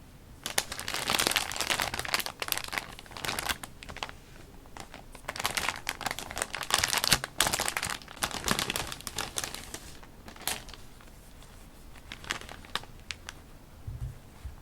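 Paper crinkling and rustling as sheets are handled, in two long bursts in the first nine seconds, then thinning to occasional short rustles and light taps.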